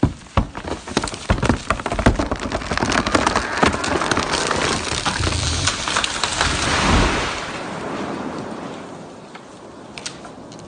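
A tree coming down: sharp cracking and snapping, then a rising rush of branches that ends in a heavy crash about seven seconds in, followed by debris pattering down.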